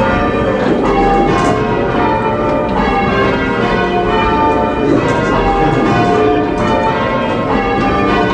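Church bells change ringing: a steady, unbroken run of overlapping bell strikes at an even pace, each bell sounding in turn as the order of the bells changes.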